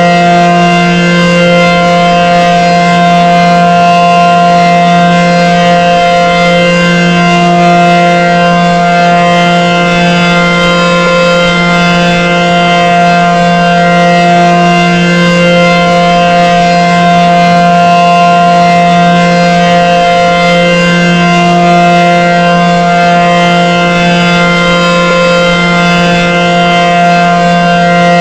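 ACA Banshee 115 outdoor warning siren sounding the steady Alert signal: a loud, continuous tone held at one pitch, swelling and fading slightly every several seconds.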